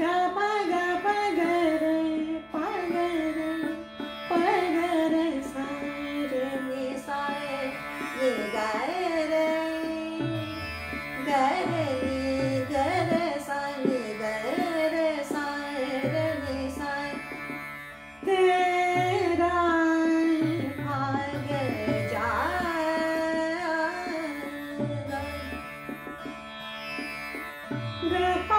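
A woman singing Indian classical vocal in long, sliding, ornamented phrases over the steady drone of a tanpura, with low drum strokes that fall in pitch.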